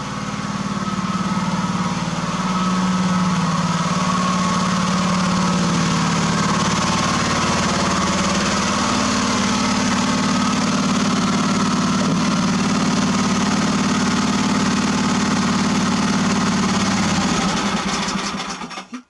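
Generator engine running steadily on wood gas from a home-built Imbert-type gasifier, then dying away over the last two seconds as it is shut off.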